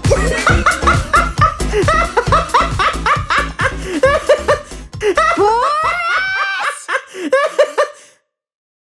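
A cartoon character laughing in rapid, bouncing bursts over upbeat background music with a steady beat. The music drops out about six and a half seconds in, and the laughter cuts off abruptly about two seconds before the end.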